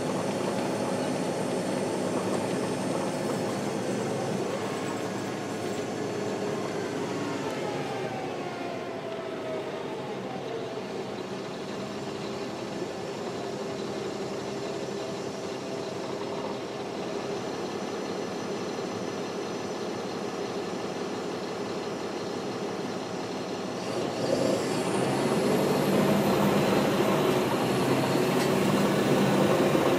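Caterpillar C-13 diesel engine of a NABI 416.15 transit bus running under way, its note falling in pitch for several seconds. About 24 seconds in it grows louder as the bus pulls harder, and a high whine climbs in pitch.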